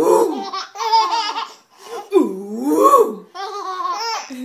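Baby girls laughing: about four bursts of high, squealing baby laughter whose pitch swoops up and down.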